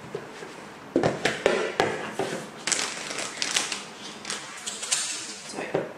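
Clear plastic bag of powdered cake mix crinkling and rustling as it is handled and opened, with a few sharp taps and knocks starting about a second in.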